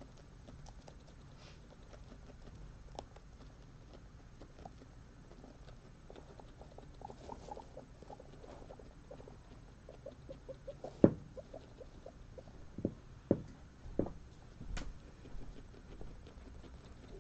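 Guinea pigs nibbling and shifting in hay and paper bedding: soft rustling and small scattered clicks. In the second half comes a run of louder sharp clicks and taps, the loudest about eleven seconds in.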